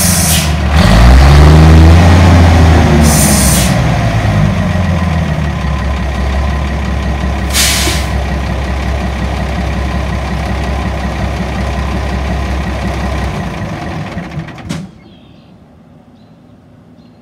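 1965 White truck's engine running, revving up and back down early on, with three short sharp hisses of released air from its air brakes. It settles to an idle and is shut off abruptly about fifteen seconds in.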